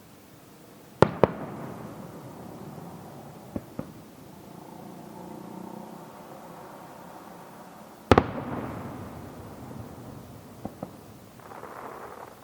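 Aerial firework shells bursting: a sharp double bang about a second in, a couple of small pops a few seconds later, then the loudest bang near the end with a long rolling echo, and a few more light pops after it.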